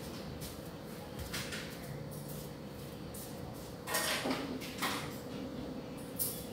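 A few separate knocks and clicks, a second or so apart, the loudest about four seconds in, over a faint steady hum.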